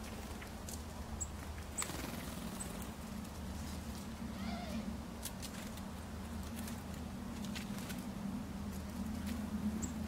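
A few short, high chirps from small garden birds at a water bowl, spaced apart, over a steady low hum, with scattered light clicks.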